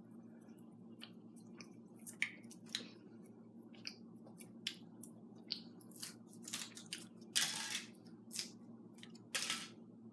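Foil wrapper of a Kinder Surprise chocolate egg crinkling and tearing as it is peeled off, in a run of short, sharp crackles. The longest, loudest crackles come about seven and a half and nine and a half seconds in.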